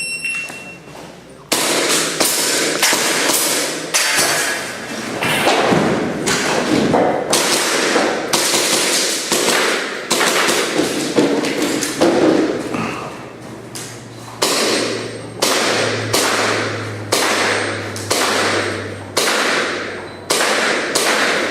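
A shot timer's short electronic start beep, then a rapid string of airsoft gas pistol shots and pellet hits on targets, about two a second. A low hum runs under the shots in the second half.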